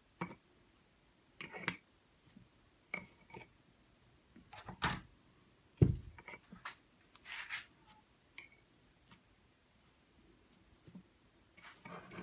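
Metal spoon clinking and scraping against a small ceramic pot while sugar is spooned onto grated fresh coconut and stirred in, as scattered short knocks every second or two. The loudest is a single dull thump about six seconds in.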